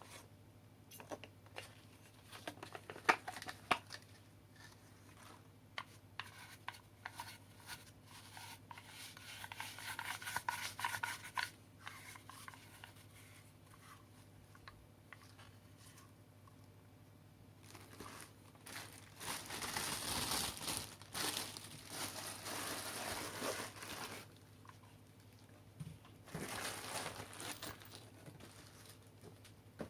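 Packaging being unwrapped and handled by hand: crinkling and rustling in several bursts, with scattered clicks and knocks in between.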